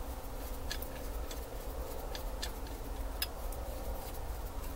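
Screwdriver turning in the top screws of a Carter BBS carburetor, giving about five sharp metal clicks scattered over a few seconds over a steady low rumble.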